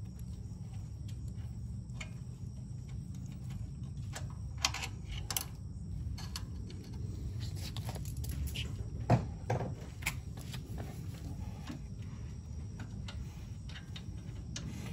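Scattered light metal clicks and clinks as the mounting bolts and spacers are worked out of a pressure washer pump's flange, the sharpest about four and a half and nine seconds in, over a steady low hum.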